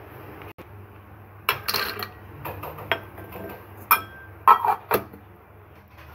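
Almonds and cashews tipped from a glass bowl into a steel mixer-grinder jar, with a series of sharp clinks and knocks of glass and metal. The loudest knocks come about four and a half to five seconds in.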